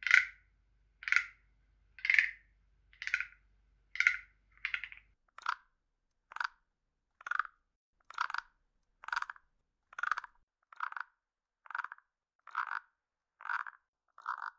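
Synthesized wood frog croaks, short calls repeating about once a second. About five seconds in, the croaks drop lower in pitch and come slightly faster.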